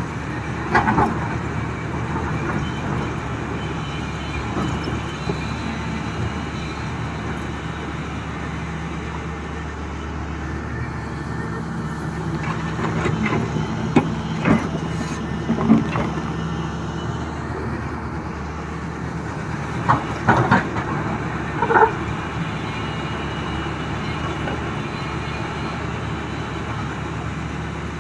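XCMG excavator's diesel engine running steadily, with sharp clanks and knocks of the bucket working rock: one about a second in, a group around the middle, and a cluster about three quarters through.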